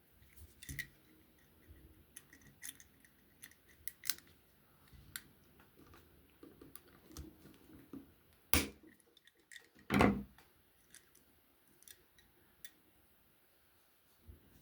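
Scattered small clicks and taps of tools and small parts being handled on a work table, with two louder knocks about halfway through.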